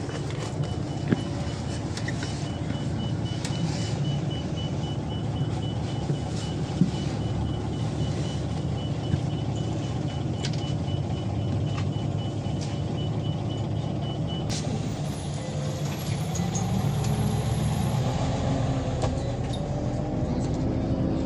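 Inside a Scania OmniLink city bus: the engine running steadily with scattered interior rattles and knocks, and a faint rapid high beeping that stops about two-thirds of the way through. Near the end the engine note rises and grows a little louder as the bus pulls away.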